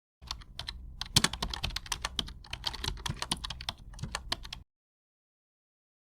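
Rapid, irregular sharp clicks and taps, several to the second at uneven spacing, like typing on keys. They stop suddenly about four and a half seconds in.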